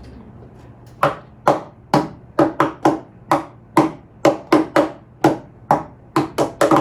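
Hands tapping out a song's rhythm on a tabletop: a quick, uneven run of sharp knocks, a few a second, starting about a second in.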